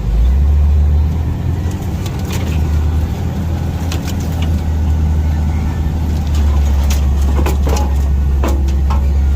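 Jeep Cherokee driving slowly off-road, its engine a steady low drone heard from inside the cabin, with a series of short knocks and rattles scattered through the middle and latter part as the vehicle works over rough ground.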